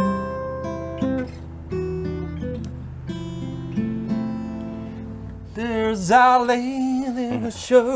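Acoustic guitar playing picked notes and chords, each ringing out. About six seconds in the guitar stops and a man's voice comes in, drawn out and wavering up and down in pitch.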